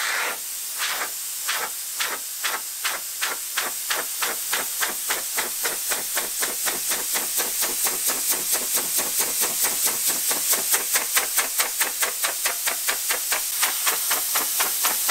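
Large two-blade carbon-fibre propeller, about 30 inches, turned by a big brushless outrunner motor, each blade pass a whoosh over a steady rush of air. The whooshes start slow and quicken steadily to several a second as the propeller spins up.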